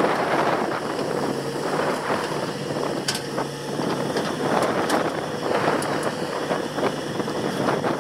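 Komatsu excavator's diesel engine running steadily, with wind rumbling on the microphone.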